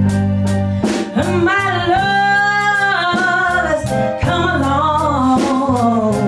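A band playing a song with a lead vocalist singing a long held, sliding line over bass, guitar and drums.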